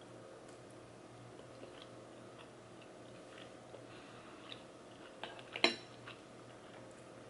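Quiet chewing of a mouthful of seafood gumbo, with scattered soft clicks. A little past five seconds a metal spoon is set down in the ceramic bowl: a few clicks, then one sharp clink with a short ring, the loudest sound.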